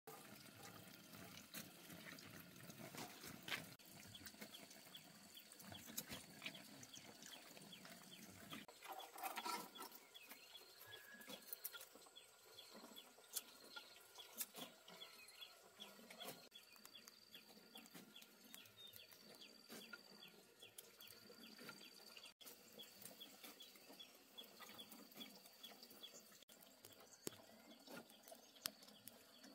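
Near silence: faint ambience with scattered soft clicks and a faint, evenly repeated high tick.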